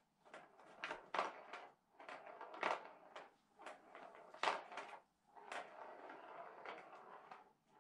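Plastic ball rolling around the plastic track of a Catit Senses Super Roller Circuit, a continuous rattling rumble broken by repeated sharp knocks as a cat bats the ball and it strikes the track. The loudest knocks come about a second, two and a half, and four and a half seconds in.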